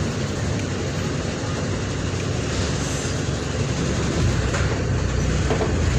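Mercedes-Benz OF-1722M bus's diesel engine running steadily with a deep rumble, mixed with ride noise from the moving bus; it gets louder about four seconds in.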